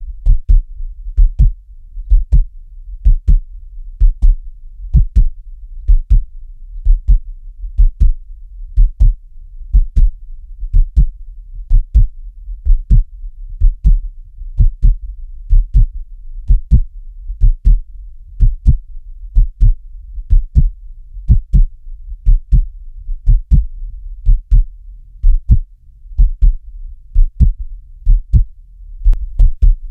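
Heartbeat: a steady, even lub-dub, each beat a deep double thump, about once a second, over a low continuous rumble.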